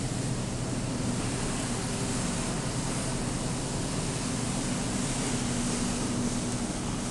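Steady rushing ambience of a large store interior with a faint low hum, even throughout.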